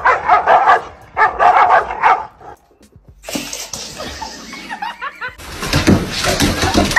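Dogs barking fiercely at each other across a gate: a fast string of loud barks for about two seconds that stops abruptly. After a short lull, other quieter mixed sound follows, growing louder and noisier near the end.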